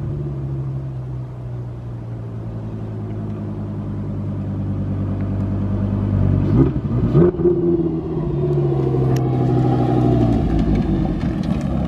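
Car engine running steadily and slowly getting louder, with a quick rise and fall in pitch about six and a half seconds in, then settling into steady running again.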